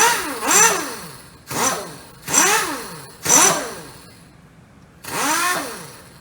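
The mill's air-operated chuck (pneumatic drawbar) is actuated repeatedly: six short, loud bursts of hissing air about a second apart, each with a whine that rises and then falls.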